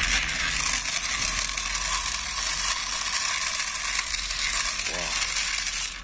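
Battery-powered toy steam locomotive switched on: a steady, high hissing whir with a fast rattle, which cuts off suddenly at the end.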